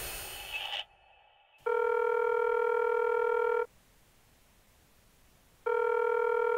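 Telephone ringback tone heard on the caller's line while a call rings out: two steady rings with a slight warble, each about two seconds long, about four seconds apart. A faint tail of the previous sound fades out in the first second.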